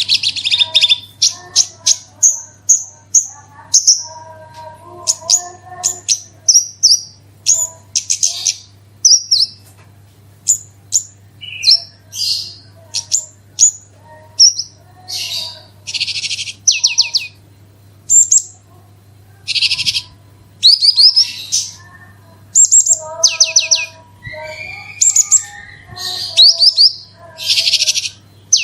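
Javan bush lark (branjangan) singing a fast, varied song of short high notes and quick trills in rapid succession, broken by brief pauses, over a faint low hum.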